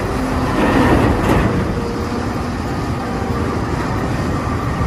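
Caterpillar 992G wheel loader's diesel engine running hard while it tips a loaded bucket of earth into a dump truck. The noise is steady, a little brighter about a second in.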